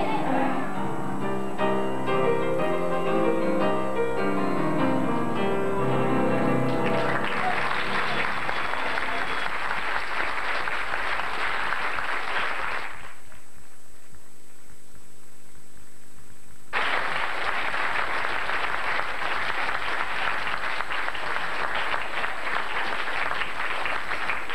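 The last notes of a song die away as an audience breaks into applause, clapping that swells and holds steady. About thirteen seconds in, the clapping cuts off abruptly, leaving only a faint low hum for a few seconds. Then the applause starts again just as suddenly.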